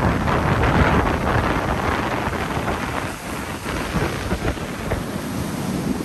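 Sea surf: breaking waves and white foam rushing up the shallows, a continuous loud rushing wash that is loudest in the first second.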